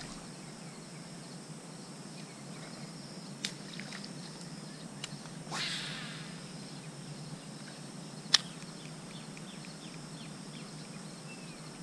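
Faint outdoor pond ambience with a few sharp clicks. About halfway through comes a half-second whoosh of a fishing cast, the baitcasting reel's spool spinning out line. Faint bird chirps come near the end.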